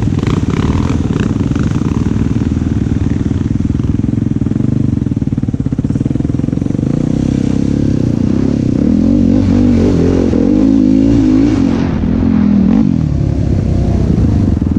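Yamaha YFZ450 quad's single-cylinder four-stroke engine running under load while riding. The revs rise and fall repeatedly from about eight to thirteen seconds in.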